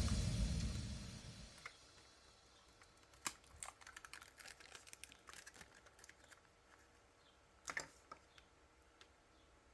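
Background music fading out, then faint irregular clicks and crinkles of small plastic packaging being handled, with a sharper cluster of clicks near the end.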